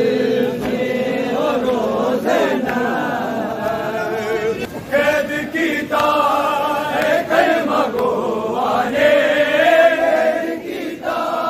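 A group of men's voices chanting a noha, a Shia mourning lament, together in long held, wavering notes.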